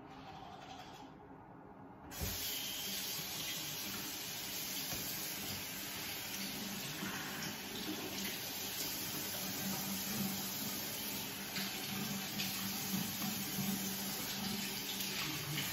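Faint toothbrush scrubbing, then about two seconds in a bathroom faucet is turned on and water runs steadily into the sink basin while he rinses.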